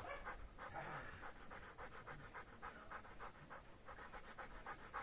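Dog panting rapidly and evenly, out of breath from chasing a flirt-pole lure.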